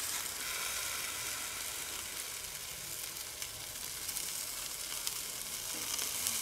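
Steaks sizzling on a grill grate: a steady, even hiss of meat searing over the heat.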